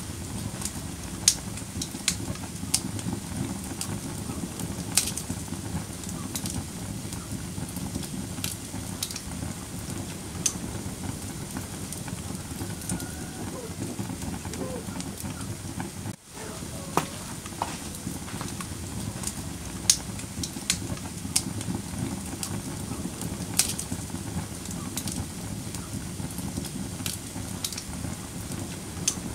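Wood fire crackling: irregular sharp pops and snaps over a steady low rush of burning flames, with a momentary dropout about halfway through.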